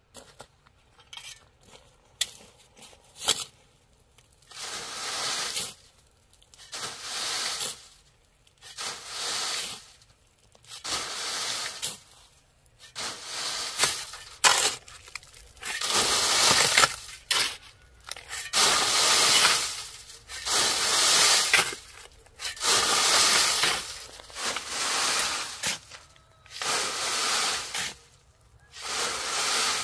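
A hoe scraping through sand and gravel in repeated strokes, about one every one and a half to two seconds, after a few scattered clicks.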